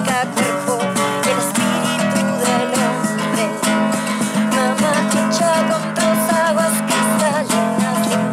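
A woman singing with vibrato to her own strummed acoustic guitar.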